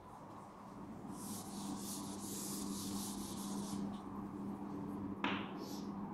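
Chalk scratching across a chalkboard in a run of short writing strokes, then a sharp tap of chalk on the board a little after five seconds in. A steady low hum runs underneath.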